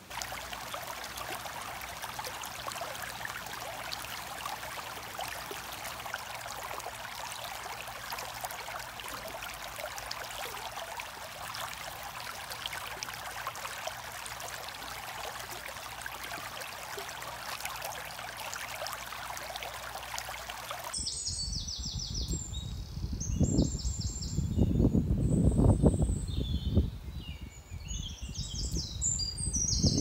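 Waterfall rushing over rocks, a steady hiss that cuts off abruptly about two-thirds of the way through. Birds chirping follow, with gusts of wind buffeting the microphone.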